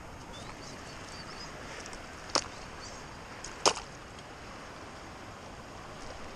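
Steady outdoor hiss of flowing river water and wind, broken by two sharp clicks about a second and a half apart.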